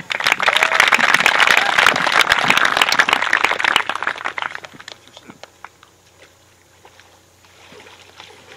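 A crowd applauding. The dense clapping lasts about four seconds, then thins out to a few scattered claps.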